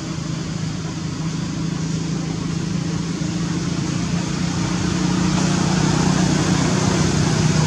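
A steady low mechanical drone over a hiss, growing a little louder in the second half.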